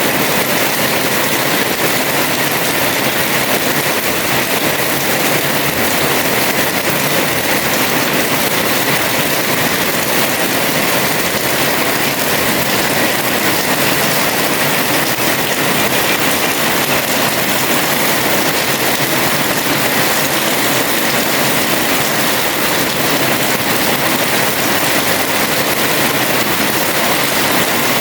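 Heavy rain falling steadily on a house terrace, a dense unbroken hiss of drops with no pauses or thunder.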